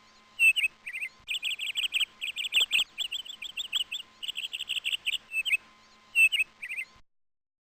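A bird singing rapid runs of high, sharp chirps, about ten a second, broken by short pauses. The song cuts off abruptly near the end.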